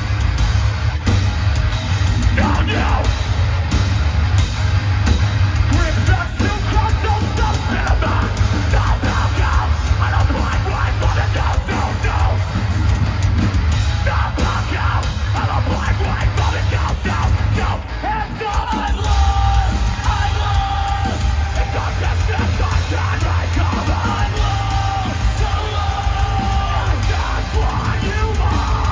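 Live metalcore band playing loud: distorted guitars, bass and drums with a screamed lead vocal, heavy in the low end. The music briefly drops in level about 18 seconds in.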